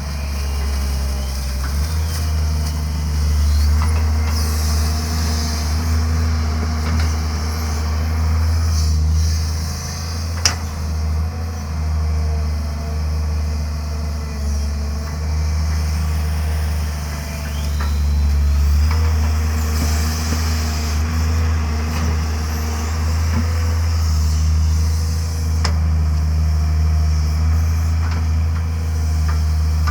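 Diesel engine of a Tata Hitachi 130 excavator running, its steady low hum swelling and easing. A hiss rises twice, and there is one sharp click about ten seconds in.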